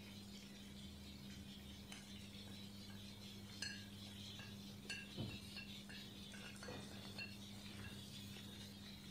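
Faint clinks and scrapes of a spatula against a plate and a steel pot as ground spices are scraped into the pot and stirred in, the clearest clinks around the middle. A steady low hum runs underneath.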